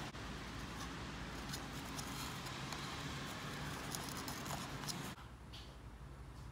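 Crinkly rustling of a satin lining cloth with small crackles and clicks as hands pack dried edible bird's nest into a plastic tub. About five seconds in it cuts off to quiet room tone.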